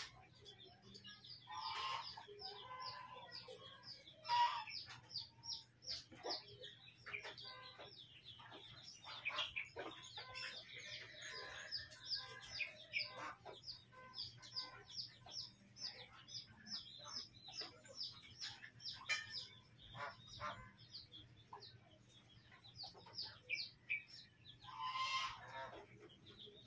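Chickens clucking, with a few louder calls about two and four seconds in and again near the end, over rapid high bird chirping that keeps going several times a second.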